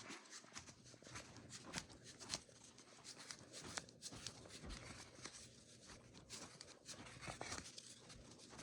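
Near silence: faint scattered clicks and rustles of handling noise, with no alarm sounding.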